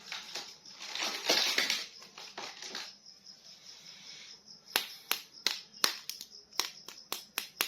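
Plastic toy packaging being handled: crinkling and rustling for the first couple of seconds. Then, from about halfway through, a quick irregular series of sharp plastic clicks.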